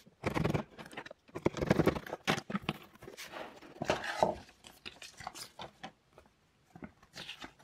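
Cardboard box flaps and paper leaflets rustling and crinkling as they are handled and lifted out of the box, with irregular crackles and light taps, busiest in the first few seconds.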